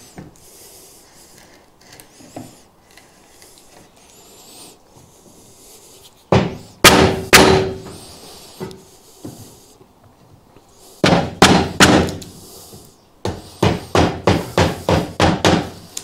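Mallet striking a wood chisel, chopping out a hinge rebate in a wooden door frame. Three blows come about six seconds in, a quick cluster follows around eleven seconds, then a steady run of about nine blows, roughly three a second, near the end.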